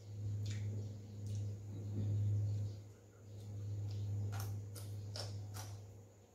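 Crunchy chewing of fresh vegetables: several short, crisp crackles, most of them in the second half, over a steady low hum.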